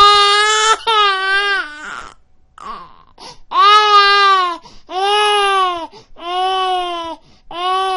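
Newborn baby crying: a run of about six loud, high wails, each under a second and held at a steady pitch that drops slightly at the end, broken by short catches of breath and a longer pause about two seconds in.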